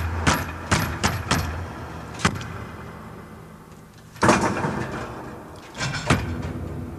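A run of sharp knocks, quick at first (two or three a second), thinning out to single strikes, with a louder struck impact about four seconds in that rings out, and two more knocks near the end, over a low steady hum.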